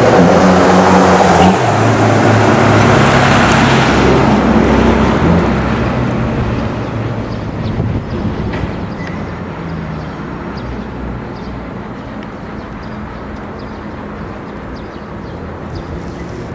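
Toyota 4Runner's 2.7-litre four-cylinder engine with Flowmaster 40 Series mufflers, running loud under throttle. Its pitch drops once about a second and a half in, then the sound fades over the next few seconds and stays quieter, as the truck pulls away.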